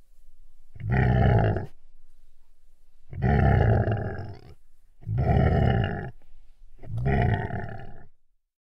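A large animal calling four times, loud drawn-out bellowing calls each about a second long, spaced about two seconds apart.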